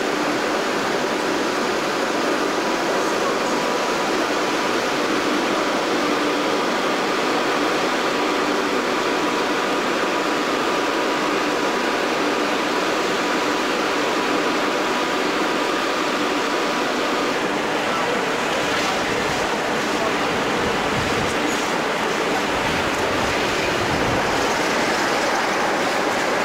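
Locomotives running at a station platform: a steady, noisy drone with a faint high whine. Low thumps and rumble come in the last several seconds.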